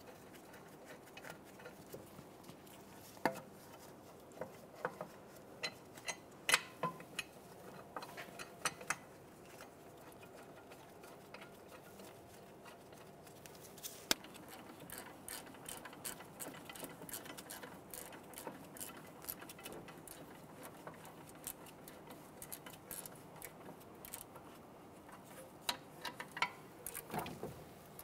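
Small metallic clicks and taps as the bolts of a Mercedes-Benz E350's rear brake caliper bracket are threaded in by hand. The clicks are scattered through the first several seconds, give way to fainter ticking, and cluster again near the end.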